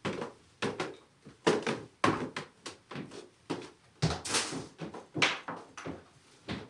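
A run of irregular knocks and clacks, about three or four a second, each short and sharp with a brief ring.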